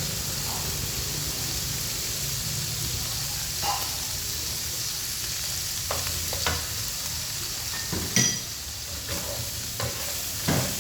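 Food sizzling steadily in a hot pan, with a few sharp scrapes and knocks of a utensil stirring it, the loudest about eight seconds in.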